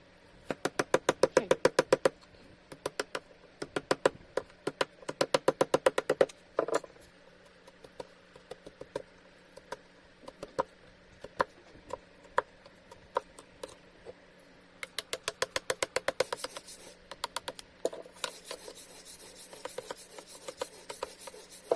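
Runs of rapid small clicks, about ten a second, each run lasting a second or a few seconds, with single clicks scattered between them.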